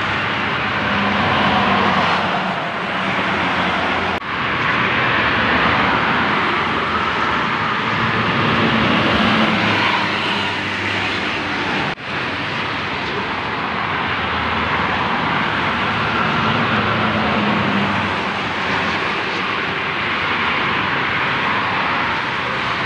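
Highway traffic going past: a steady rush of tyres and engines that swells and fades as vehicles go by, broken by abrupt cuts about four and twelve seconds in.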